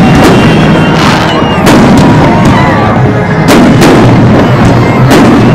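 Fireworks display with shells bursting overhead in a loud, rapid series of bangs, roughly two a second.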